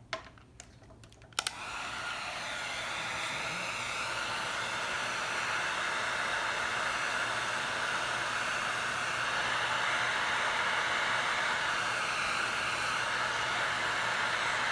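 Electric heat gun switched on with a click about a second and a half in, then running with a steady blowing hiss, used to shrink heat-shrink tubing over a crimped ring terminal on a battery cable.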